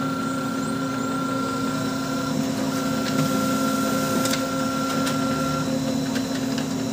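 Brother DCP-L2540DW laser printer running a copy job: a steady motor hum with a constant whine, a higher tone that drops out briefly about two and a half seconds in and stops near the end, and a sharp click about four seconds in.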